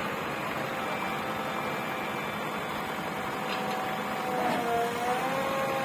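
JCB backhoe loader's diesel engine and hydraulics running under load as the backhoe arm works against a stuck tractor, giving a steady machine whine. The whine's pitch dips and then rises a little about four and a half seconds in.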